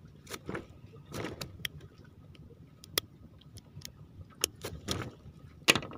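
Small metal scissors clicking and snipping at a caught fish's mouth, with rustles from handling the fish. A string of sharp clicks, the loudest near the end.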